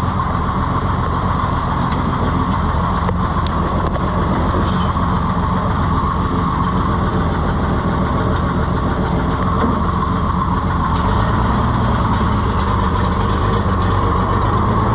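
Oliver 70 tractor's six-cylinder engine running steadily as the tractor is taken for a drive, a little louder and deeper from about eleven seconds in. The engine still has an exhaust leak that the owner means to fix.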